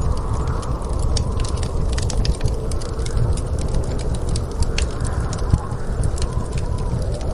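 Wood fire crackling in a fireplace, irregular snaps and pops over a steady low rumble of storm wind.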